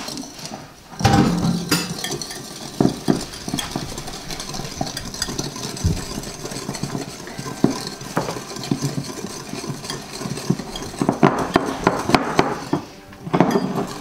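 Wire whisk beating egg yolks and sugar in a ceramic mixing bowl: a fast, continuous run of clicking and scraping as the wires strike the bowl, to dissolve the sugar. It starts about a second in and pauses briefly near the end.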